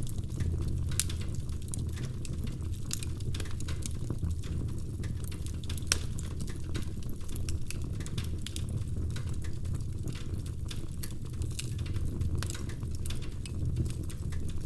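Wood fire crackling in a fireplace: irregular sharp pops and snaps over a steady low rumble of the burning fire, with a couple of louder pops about one and six seconds in.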